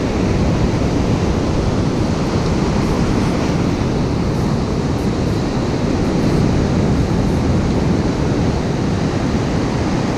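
Ocean surf breaking and washing up a sandy beach, a steady rush of water, with wind buffeting the microphone.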